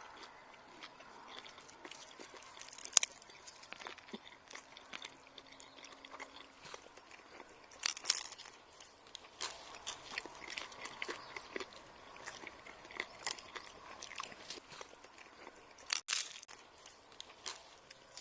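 Biting into and chewing grilled lavash with suluguni cheese: scattered crunches and mouth clicks, with a few sharper crunches about three, eight and sixteen seconds in.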